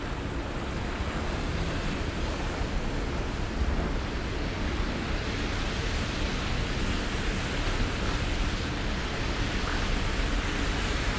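Storm wind blowing steadily, buffeting the microphone with a low rumble under an even noise.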